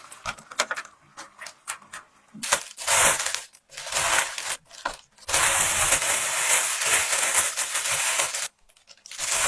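Thin plastic bag crinkling and rustling as hands pack foil trays into it and gather it closed, loud and continuous for the last few seconds. A few light clicks and taps come first.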